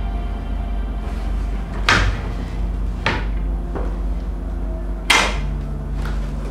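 A cardboard shipping box and a packed drum being handled during unboxing: a few sharp knocks and thuds, the loudest about two and five seconds in, over a steady low hum.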